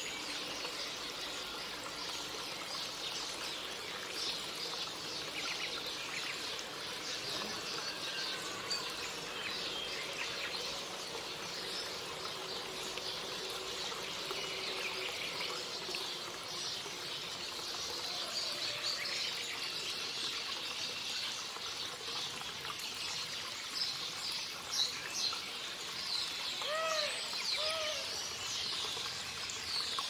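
Nature soundscape of many small birds chirping and twittering over steady trickling water, with two short low calls, each rising and falling, near the end.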